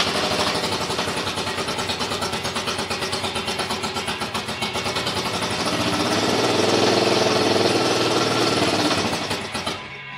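Four-wheeler (ATV) engine with a freshly cleaned carburettor starting and running in a rapid, even beat. It is brought back to life after running badly. It gets louder from about six seconds in and stops shortly before the end.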